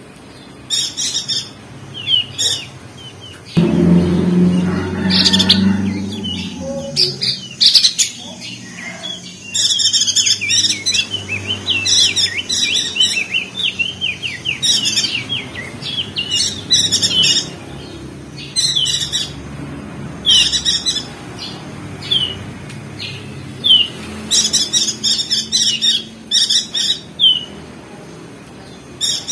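Opior jambul (crested darkeye) songbirds chattering in fast, high, twittering bursts, one string of chirps after another. A low rumble runs beneath the song for a few seconds early on.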